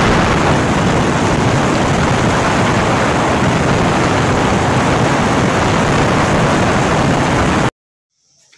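Loud, steady wind rush over the microphone of a motorcycle ridden at speed, drowning out any clear engine note; it cuts off abruptly near the end.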